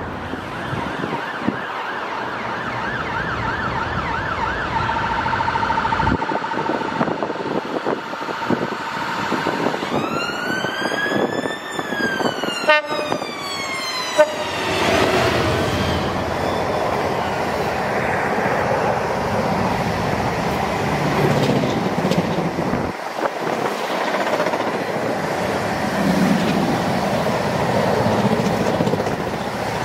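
Freightliner Class 66 diesel locomotive sounding its horn as it approaches: one long blast that rises then falls in pitch, then a shorter one. It then passes close with its two-stroke diesel engine running, followed by the rattle of container wagons.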